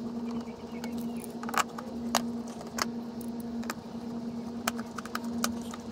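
Screwdriver and hand working on a scooter's plastic air filter cover as it is screwed back on: scattered sharp clicks and taps of plastic and metal, over a steady low hum.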